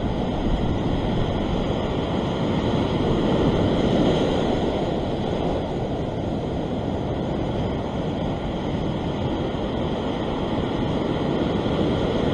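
Ocean surf breaking and washing over a rock ledge: a steady rush of white water, with wind on the microphone. The surge swells louder about four seconds in.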